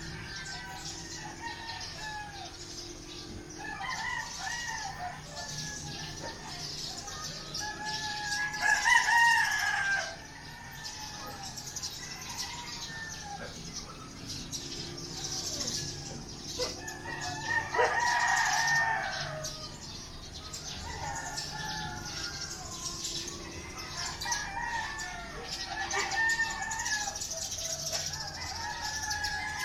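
Several roosters crowing one after another, some close and some farther off, with two loud, near crows about 9 and 18 seconds in. A steady high hiss runs underneath.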